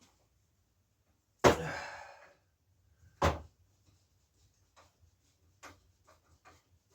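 Two loud metallic clanks during a bike strip-down, about two seconds apart, the first trailing off in a short rattle, then a few light taps and clicks as parts and tools are handled.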